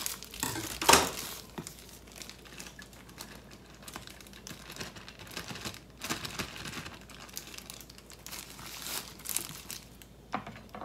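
Thin plastic boil-in-bag rice sachets crinkling and rustling as they are handled, opened and shaken out, in irregular bursts with the loudest rustle about a second in.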